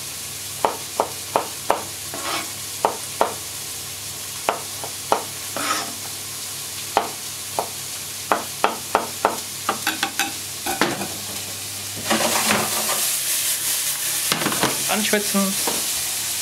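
Chef's knife dicing cherry tomatoes on a plastic cutting board, a run of irregular sharp taps, over the steady sizzle of vegetables frying in olive oil in a steel pan. About twelve seconds in the knife stops and the frying sizzle turns much louder as the pan is worked.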